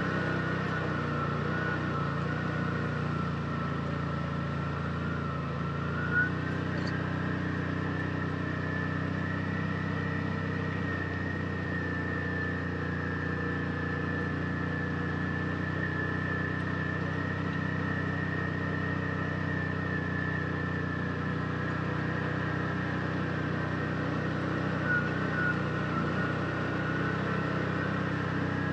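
Side-by-side UTV engine running at a steady pace, with a steady high whine over it. A short knock comes about six seconds in and another near the end.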